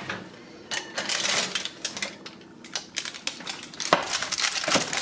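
Clatter and rattling of a loaf pan being slid off a wire oven rack and set down on the glass stovetop, with a couple of sharper knocks near the end.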